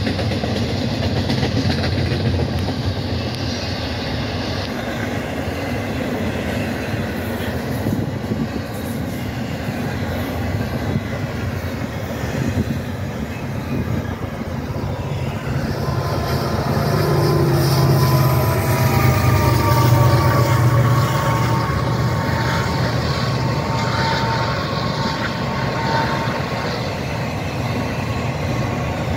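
A double-stack intermodal container train rolling past, with a steady rumble and clatter of wheels on rail. About halfway through, mid-train diesel locomotives pass and their engines grow louder. A thin, high squeal of several tones, typical of wheels on the rail, rises over the noise for several seconds in the second half.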